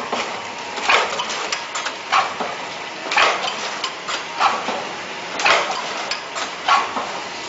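Liquid film sachet packing machine running, with a sharp mechanical clack about once a second as it cycles through sealing and cutting off each sachet, and lighter clicks between the strokes.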